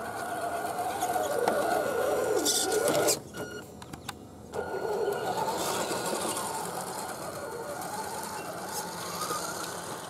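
Electric motor and gears of a 1/10-scale RC 4x4 truck whining as it drives through mud, the pitch rising and falling with the throttle. The whine drops away briefly about three seconds in, then returns.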